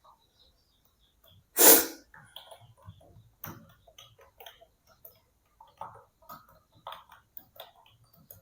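Keys of a Dell KB216 wired keyboard clicking in an irregular patter of a few strokes a second. A single loud, short rush of noise about 1.7 seconds in stands out above the key clicks.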